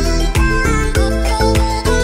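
Background music with a steady beat and a melody over a bass line.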